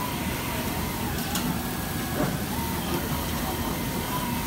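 FK Universal 8 automatic fabric cutting machine running, its cutting head working through a stack of fabric: a steady mechanical noise with a thin, steady whine.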